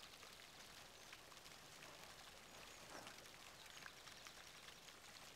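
Near silence: faint ambient hiss with a few soft ticks.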